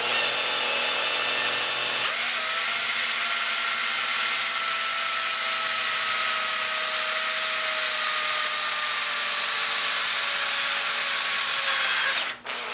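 Makita cordless drill running as its bit drills a hole through the wall of an aluminum rifle magazine. The note changes about two seconds in, then the drill runs steadily with a whine that sinks slowly in pitch, and it stops near the end.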